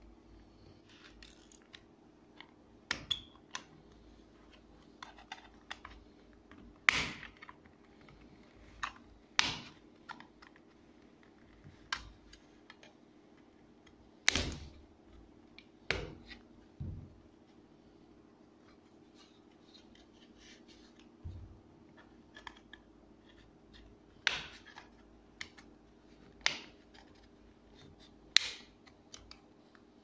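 Plastic case of a TV remote control being pried apart with a small flat-blade screwdriver: sharp clicks and snaps at irregular intervals, a dozen or so, as the seam is worked open. A faint steady hum runs underneath.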